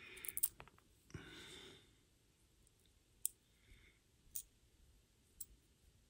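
Small parts of a miniature toggle switch clicking faintly as they are fitted back together by hand: a quick flurry of small clicks in the first second, then three sharper single clicks about a second apart. A soft breath is heard about a second in.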